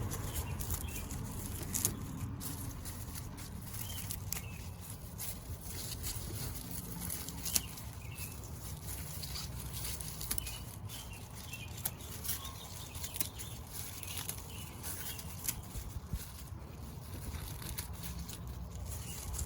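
Crisp snapping and rustling of Paris Island romaine lettuce leaves being picked off by hand: many short, irregular clicks over a steady low rumble.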